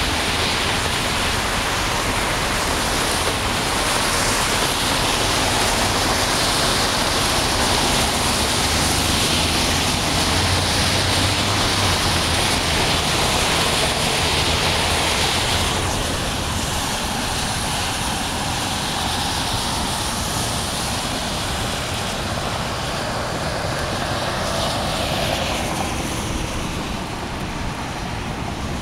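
Traffic on a rain-soaked road: a steady hiss of tyres through water with a low engine hum in the first half. The hiss eases a little past the middle.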